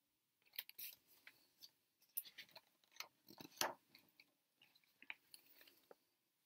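Faint rustling and crinkling of a picture book's stiff paper pages being turned and handled, a scatter of short crackles with the loudest a little past the middle.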